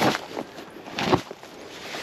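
A machete digging into the ground: three rough scraping strokes through soil, the last about a second in.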